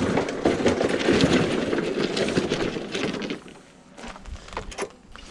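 A petrol push lawn mower with its engine off being rolled along: its wheels, plastic deck and handle rattle and clatter steadily over concrete and gravel, then the noise drops to a few scattered clicks about three seconds in.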